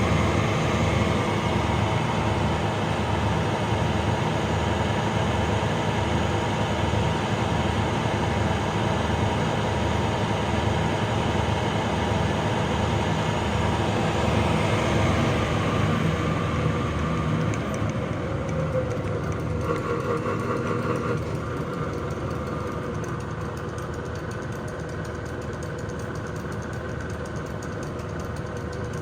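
Harrison VS300 toolmaker's lathe running under power, a steady mechanical hum with a regular low throb. About two-thirds of the way through the sound changes and drops somewhat in level, as if the spindle speed is being changed or the drive is slowing down.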